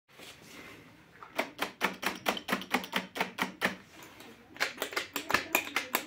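Piano accordion's button mechanism clicking as buttons are pressed without any notes sounding, about two to three clicks a second in two runs with a short pause between.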